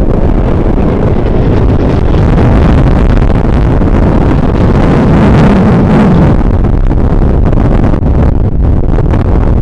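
WWII propeller warbirds flying low overhead, a loud engine drone that swells as one passes about five to six seconds in, with heavy wind buffeting on the microphone.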